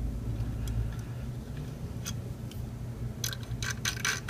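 Light metallic clicks and ticks of a small T7 screwdriver and tiny screws being worked into the side of a laptop solid state drive, sparse at first and coming thick and fast from about three seconds in, over a low steady hum.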